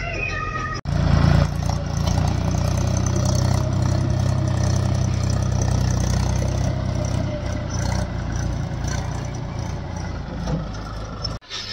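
Heavy diesel engine running steadily at an even speed. It comes in abruptly about a second in and cuts off just before the end.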